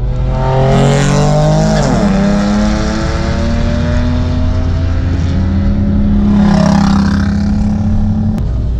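Mercedes CLK55 AMG's V8 heard from inside the cabin, rising in pitch for about two seconds and dropping sharply at a gear change, then running steadily.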